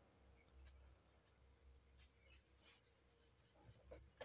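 Near silence: room tone with a faint, high, rapidly pulsing tone.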